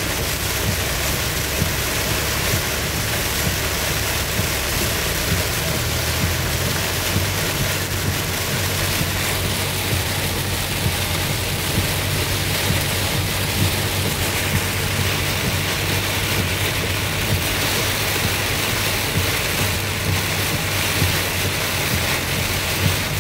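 Heavy rain drumming on a moving car, over a steady low rumble of engine and tyres on the wet road, heard from inside the cabin.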